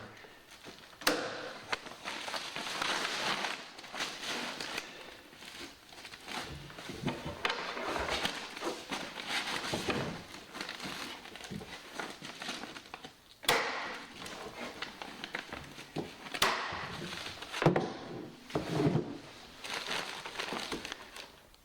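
Weed control membrane fabric rustling and crinkling as it is handled and smoothed, with four sharp snaps from a mains-powered electric staple gun firing staples.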